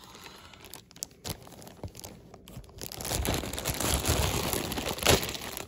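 Clear plastic poly bag crinkling and rustling as it is opened and pulled off a plush toy: scattered light crackles at first, turning to dense, louder crinkling about halfway through, with one sharp crackle near the end.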